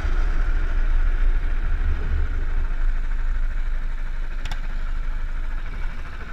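Go-kart engine running at low speed as the kart slows and rolls to a stop, its note fading, with wind rumble on the onboard microphone. A short click about four and a half seconds in.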